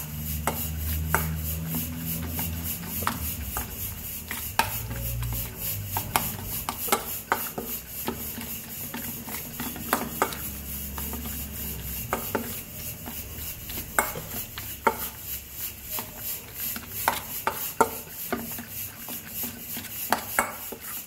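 Steel spoon stirring and scraping against a stainless steel bowl, turning chicken gizzards in a thick wet masala paste, with irregular clinks as the spoon knocks the bowl's sides.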